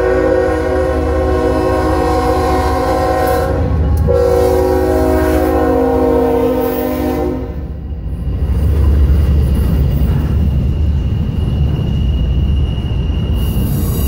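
A freight locomotive's air horn sounds a long continuous blast, a chord of several notes. It dips briefly about four seconds in and cuts off about seven and a half seconds in. After that the passing double-stack intermodal train rumbles by with a clatter of wheels on rail.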